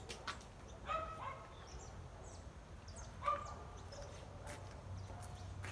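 Two short animal calls, one about a second in and a louder one a little past halfway, over small birds chirping.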